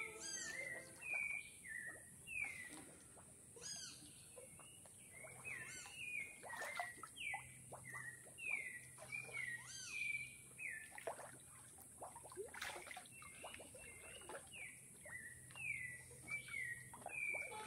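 Birds calling over and over in short notes that slide down in pitch, with water splashing as a swimmer moves through the pool, over a steady high hiss.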